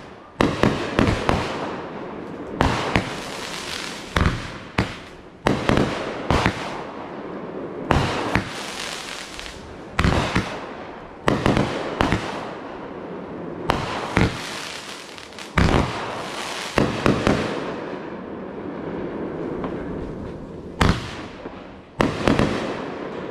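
Consumer aerial fireworks going off in quick succession: sharp bangs roughly one to two a second, each followed by crackling and echo, with a short lull around the middle.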